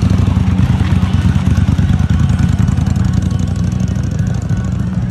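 Motorcycle engine running loudly and steadily, with a rapid, even firing pulse.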